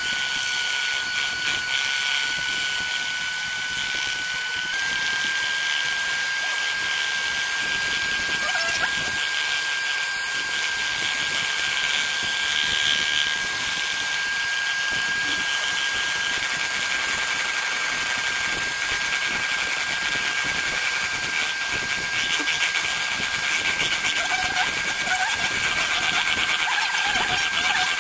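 Electric hand mixer running steadily, its beaters whipping instant coffee, sugar and cold water into a stiff foam in a plastic bowl. A constant motor whine with a high tone that rises a little about five seconds in.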